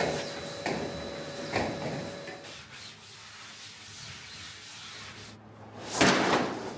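Hand rubbing strokes against the boat hull, as in sanding or wiping it down: three short swipes in the first two seconds, then a louder, longer swipe about six seconds in.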